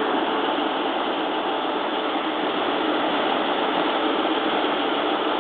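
KiHa 110-series diesel railcar standing at the platform with its underfloor diesel engine running steadily at idle.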